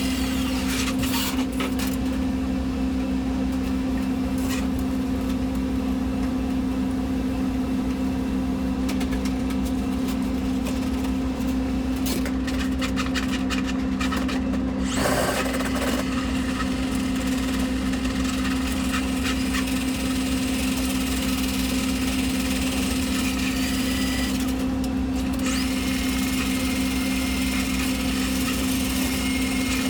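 Milwaukee M12 battery-powered tool motor running steadily with a constant hum, with a few short rattles against it.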